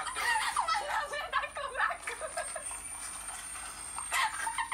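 A man laughing in quick, pitched bursts for the first two seconds, breaking into laughter again near the end.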